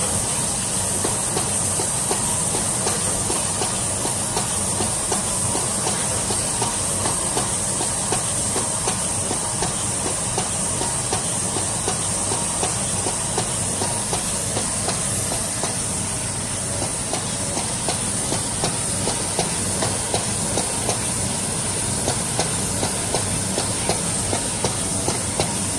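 Automatic 0603 inductor testing and packaging machine running: a steady mechanical hum and air hiss with rapid clicking and clatter throughout, and sharper ticks near the end.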